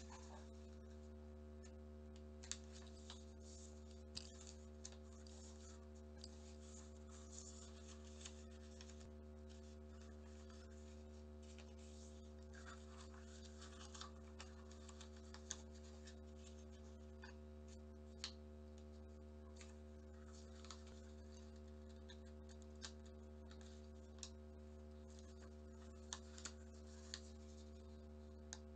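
Origami paper being folded and creased by hand on a wooden tabletop: faint scattered rustles and crisp little taps every second or two, over a steady low hum.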